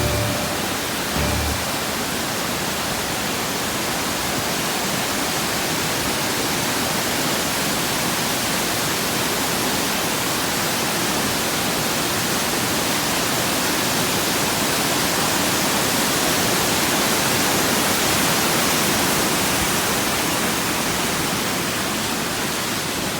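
A waterfall rushing steadily, a loud, even wash of falling water.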